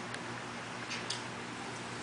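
Two faint clicks of Lego plastic pieces being handled, over a steady hiss.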